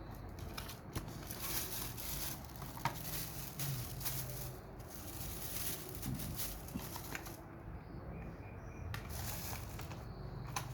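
Packaging being handled: rustling and crinkling with scattered light clicks and ticks.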